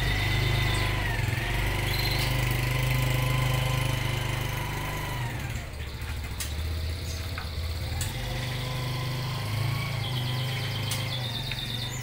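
An engine idling steadily, a constant low drone. Near the end a canary starts a fast high trill.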